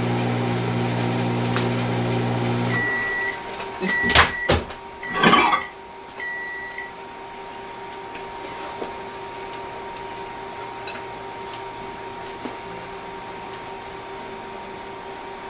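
Microwave oven running with a steady hum that stops about three seconds in as the cook cycle ends, followed by four short high beeps signalling it is done. Loud clicks and a brief clatter come between the beeps as the door is opened.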